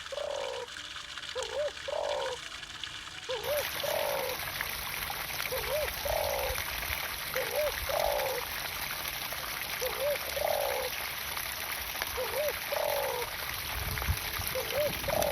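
Pumped water pouring and splashing into a garden pond in a steady rushing hiss, which grows fuller about three and a half seconds in. Over it, a low two-part animal call repeats evenly, about every two seconds.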